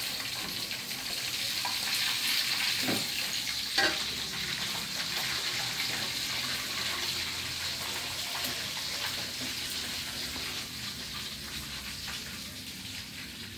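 A steady hiss throughout, with a few faint clicks and one brief high sound a little under four seconds in.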